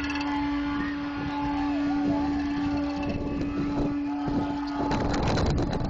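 Street-parade crowd ambience with a steady low drone and warbling tones over it. A louder burst of rushing noise comes near the end.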